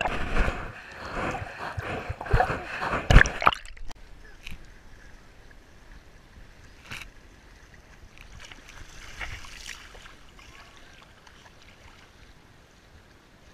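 Water splashing and sloshing right against a GoPro camera, with sharp knocks against the housing; it is loud for the first three to four seconds, then stops suddenly. What follows is a much quieter wash of shallow water with a few faint small splashes.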